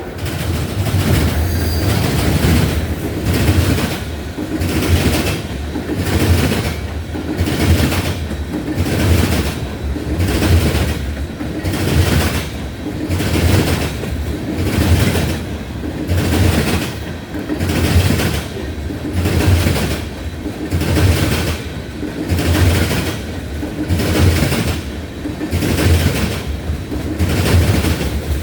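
Ethanol tank cars of a freight train rolling past, their wheels clacking over rail joints in a steady rhythm of about one beat a second.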